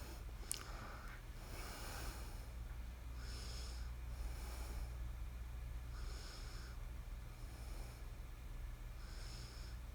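Soft nasal breathing close to the microphone, a hissy puff every second or two, over a faint steady low hum, with one sharp click about half a second in.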